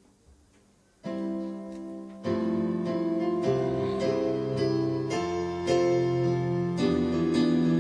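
Piano or keyboard playing the introduction to a hymn in sustained chords: it enters suddenly about a second in, after near silence, and the chords grow fuller with a bass line a second later, changing about once a second.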